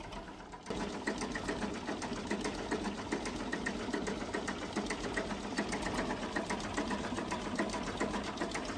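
A machine running with a fast, even clatter, starting abruptly about a second in.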